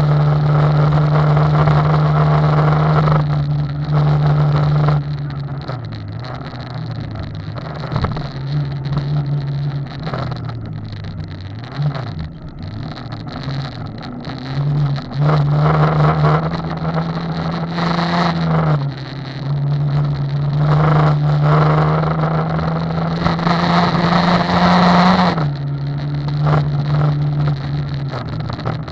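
A rally car's engine heard from inside the cabin, held at high revs and pulling hard. The engine note drops several times as the throttle is lifted or a gear is changed, then climbs again. Tyre and gravel noise from the dirt road runs underneath.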